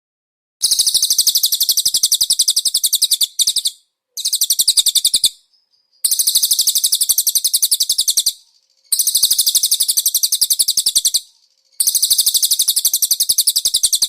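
Cililin bird singing: a rapid, high-pitched trill delivered in five long phrases of about two to three seconds each, with short pauses between them.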